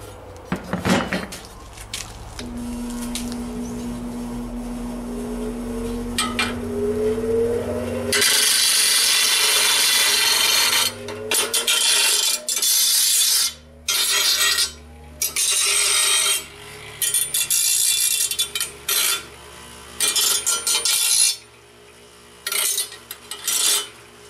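Bench grinder running with a steady motor hum, then the edge of a steel lawn mower blade ground against the wheel in repeated passes. Each pass is a loud, harsh grinding that starts and stops every second or two.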